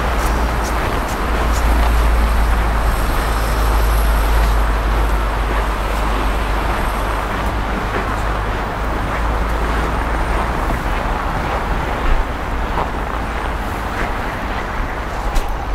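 Steady city traffic noise with a deep low rumble underneath, and a short knock about twelve seconds in.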